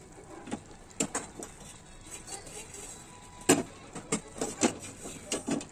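A spoon or ladle knocking and scraping against an aluminium pot as cooked biryani rice is turned and mixed: an irregular scatter of sharp clinks, the loudest about three and a half seconds in.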